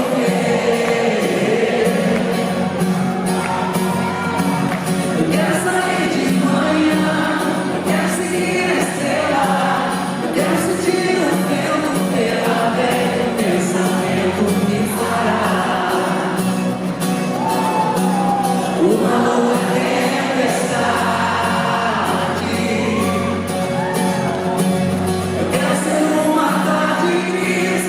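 Live band music with singing over it and crowd voices mixed in.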